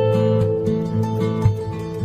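Background music: acoustic guitar, plucked and strummed, over a steady repeating bass pattern.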